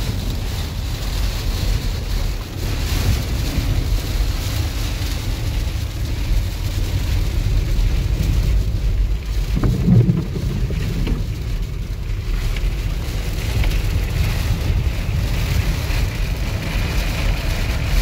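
Heavy rain running and pattering on a van's windscreen and windows, heard from inside the cabin, over a deep, steady rumble of storm wind buffeting the van. There is one louder low thump about halfway through.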